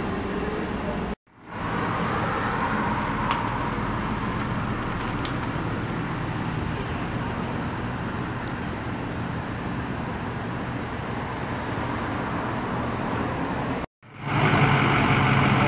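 Steady street noise of vehicle engines and traffic, broken twice by a sudden drop to silence at a cut: about a second in and near the end. After the second drop a louder, steady low engine hum comes in.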